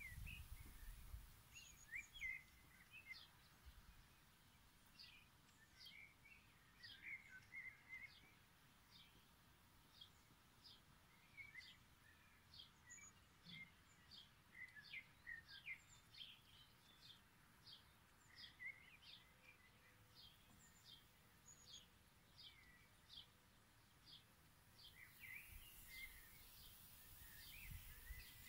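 Faint outdoor birdsong: a bird repeats a short, high, thin note about twice a second, with other soft chirps scattered around it.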